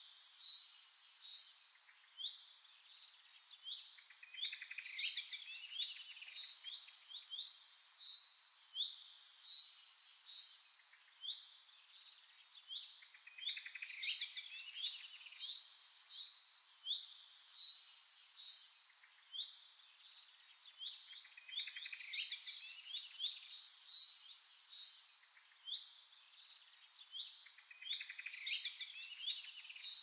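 Songbirds singing: overlapping high chirps and quick trills that come in short phrases every second or two.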